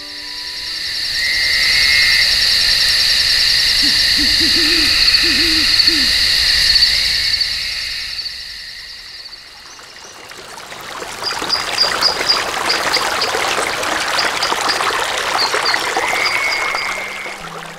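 Nature-sound tracks from the BRICA Magical Firefly crib soother: a night-woodland scene with a steady high chirring and an owl hooting a few times about four to six seconds in. After a short lull near the middle it changes to rushing water with short high chirps over it.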